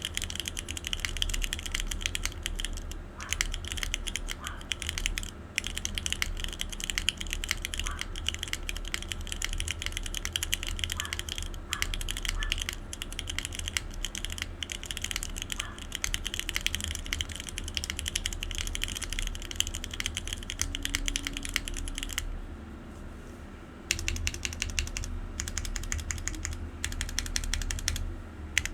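Typing on a TGR Jane V2 ME custom mechanical keyboard with broken-in linear Cherry MX Black switches on 62 g springs, a PP plate, top mount and GMK Space Cadet keycaps: a fast, steady stream of keystrokes, with a brief pause about three-quarters of the way through.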